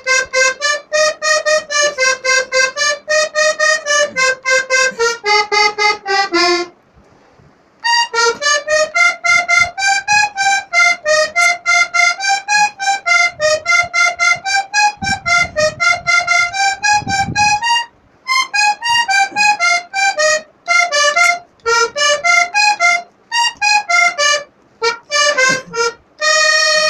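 Accordion playing a melody in quick, short, separated notes. About six seconds in, a falling run of notes leads into a pause of about a second before the tune resumes, and near the end a single note is held.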